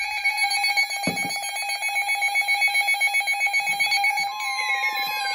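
Emergency Alert System alert tones for a severe thunderstorm warning: loud, rapidly pulsing electronic tones, joined about four seconds in by a second, higher tone, with a few falling glides near the end. A brief low thump about a second in.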